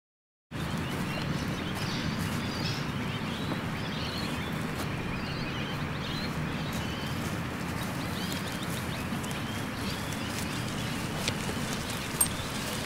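Small birds chirping repeatedly over a steady low outdoor background noise, with a single sharp click near the end.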